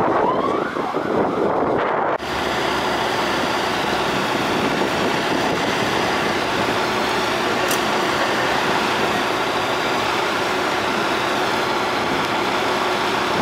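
UK fire engines responding: a siren rising in pitch near the start over heavy truck diesel engines. About two seconds in the sound changes abruptly to a steady, dense mix of the fire trucks' sirens and engines.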